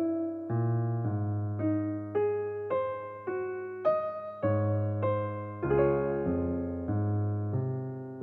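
Background piano music: a slow melody of single notes, about two a second, over held low notes.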